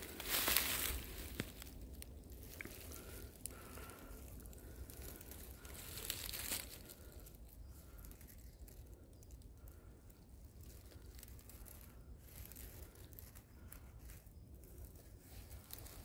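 Dry fallen leaves crunching and crinkling, loudest in the first second and again about six seconds in, then only faint outdoor ambience.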